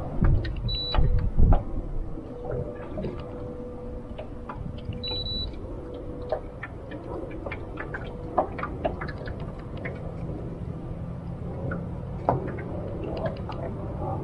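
Wind buffeting the microphone, with water slapping and ticking against a small aluminum boat's hull in choppy water. Two short high electronic beeps come about a second in and about five seconds in.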